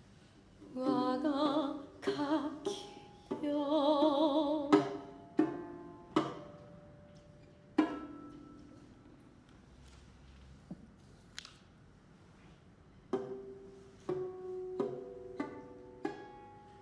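Music for Noh voice and lute. In the first few seconds a Noh singer's voice sings two short phrases with a wide, wavering vibrato. Then comes a series of single plucked lute notes that each ring and die away: sparse at first, with a quicker string of notes near the end.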